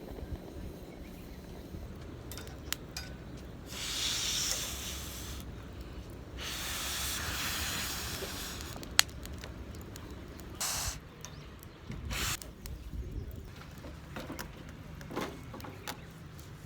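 Rice cooking in an aluminium mess tin on a camp stove, hissing and sizzling in bursts of one to three seconds, with a few small clicks and ticks, over a low steady rumble. The water is still boiling off and spilling over, so the rice is not done yet.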